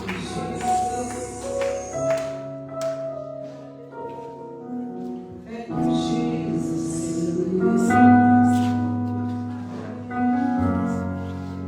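Church worship music: sustained keyboard chords over low bass notes that change every couple of seconds, with singing.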